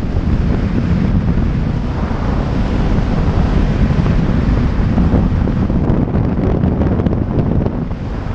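Heavy wind buffeting over the microphone of a camera on a motorcycle rider at road speed, a loud, steady low rush, with the motorcycle running underneath it.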